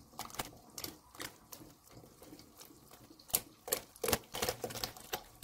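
Silicone whisk beating flour-and-water batter into a steel pot, its head tapping and clicking against the pot at an uneven pace of two or three a second, with a few louder knocks about three to four seconds in. The batter is being whisked into boiling water without pause so that it does not lump.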